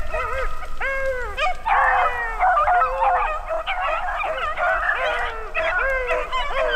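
A pack of beagles baying as they run a freshly jumped rabbit's scent trail, their drawn-out, rising-and-falling calls overlapping, with more dogs joining in about two seconds in.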